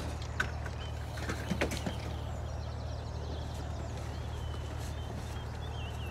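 Outdoor ambience: a steady low rumble with a few faint clicks in the first two seconds and faint high chirps in the second half.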